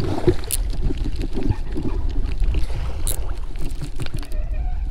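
Wind rumbling on the microphone and water lapping against a kayak hull, with a couple of light clicks.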